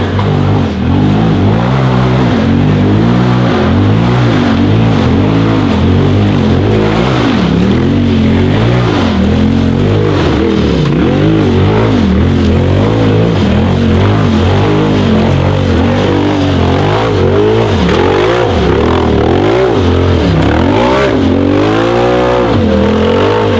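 Turbocharged Polaris RZR engine in a single-seat tube buggy, revved hard again and again on a steep hill climb. Its pitch rises and falls in quick repeated surges as the throttle is worked over the rocks.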